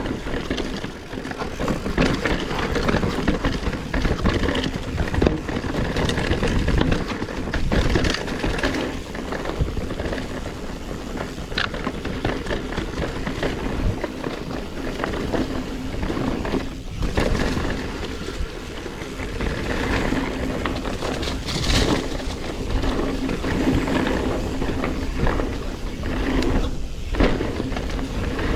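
Specialized Stumpjumper Evo Alloy mountain bike riding rough singletrack: tyres rolling over dirt and rock, the bike rattling, and a run of short knocks from hits on the trail, with wind on the microphone.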